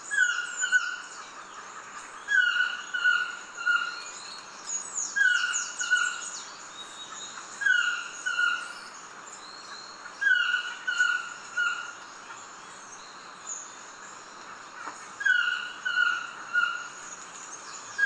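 Black-mandibled toucan calling: a yelping phrase of one falling note and two shorter notes, repeated about every two and a half seconds, six times, with a longer pause before the last. Behind it is a steady rainforest insect hiss and faint chirps of other birds.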